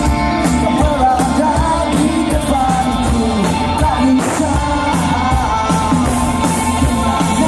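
Live band playing loudly with singing, the drums hitting steadily under the vocal line.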